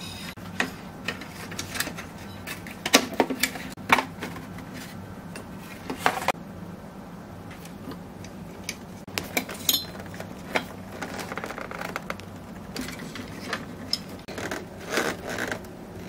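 Scattered clicks and knocks of a plastic-framed cooling fan being handled and fitted onto an aluminium finned heatsink, with a screwdriver driving its mounting screws, over a low steady hum.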